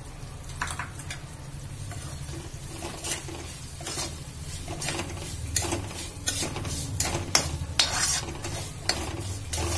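A steel spoon scraping and clinking against an aluminium kadhai as khoya and coarse sugar are stirred together, in irregular strokes a few times a second over a steady low hum.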